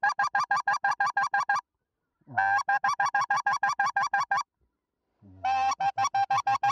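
Goose call (mouth-blown reed call) worked to bring in approaching geese: three runs of quick honking clucks, about eight a second, each run opening with a longer drawn-out note and broken by short pauses.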